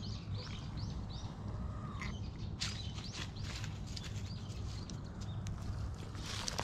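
Footsteps crunching and rustling through dry fallen leaves and grass, in scattered crackles. A bird gives a quick run of short high chirps in the first second.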